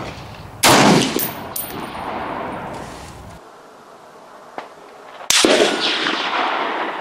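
Two rifle shots about five seconds apart from a Springfield M1A SOCOM in 7.62 NATO, each a sharp report that echoes away over a second or more. Light metallic pings follow just after the first shot.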